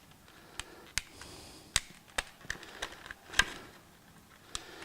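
A new gauge's plastic packaging being handled and opened: a series of sharp, irregular clicks and taps, with a brief crinkle about a second in.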